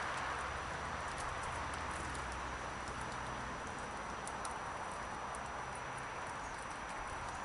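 Outdoor garden ambience: a steady even hiss with many scattered faint, short, high-pitched ticks.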